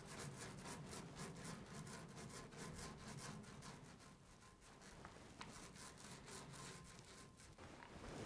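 Small paint roller rolling thick paint across a sheet-metal cabinet door: a faint, continuous rubbing made of many quick, close-set crackles.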